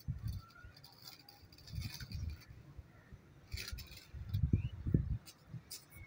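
Scattered light metallic clicks and dull knocks as a Mayfield skull clamp is handled and rotated at its joints, the knocks heaviest a little after the middle.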